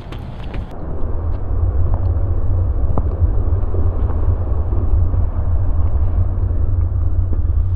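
Wind buffeting the camera's microphone as it moves along with a runner: a steady low rumble that sounds muffled from about a second in.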